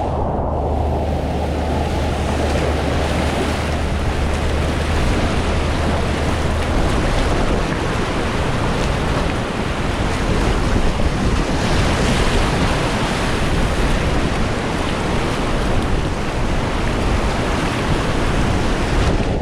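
Loud, steady rush of big, fast whitewater rapids, heard close up with wind buffeting the microphone.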